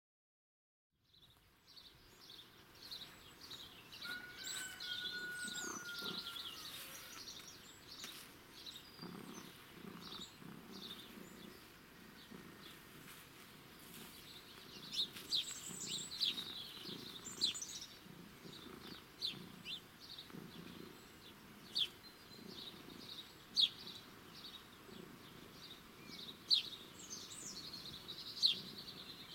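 Small birds chirping and calling, with short sharp chirps and a brief whistle early on. From about nine seconds in, a cat purrs close by, a low purr pulsing about once a second.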